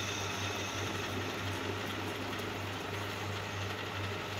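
Metal lathe running with a steady low hum while turning a steel axle blank. The cut goes smoothly, with no groaning from the machine, a sign that the steel is free-cutting.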